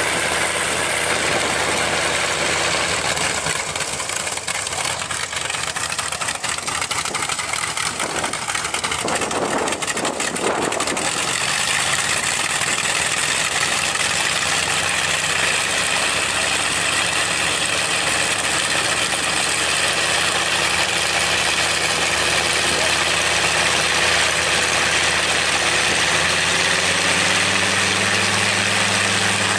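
Bristol Hercules two-row radial aero engine running steadily on a trailer-mounted test stand, propeller turning. The engine note changes near the end.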